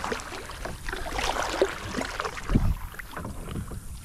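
Kayak paddle strokes, the blade dipping and splashing in calm water, with a low thump about two and a half seconds in.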